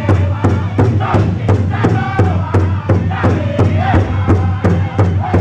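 Powwow drum group singing a jingle dress dance song, several voices in unison over one large powwow drum struck together in a steady beat of about three strokes a second.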